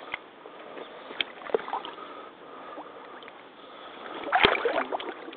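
Mitsuuma rubber crotch waders wading in shallow muddy water: sloshing and squelching of the boots in mud, with a few small ticks early on and a louder slosh of a step near the end.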